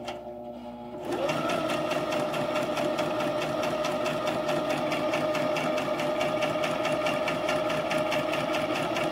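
Brother XM2701 electric sewing machine stitching a seam. Its motor whirs up about a second in, then runs at a steady speed with a rapid, even ticking of the needle strokes.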